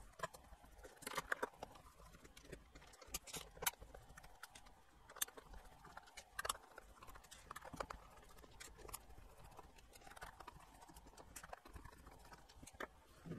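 Faint, irregular clicks and taps of a Torx screwdriver working small screws out of a fish finder's plastic back case, with the case being handled.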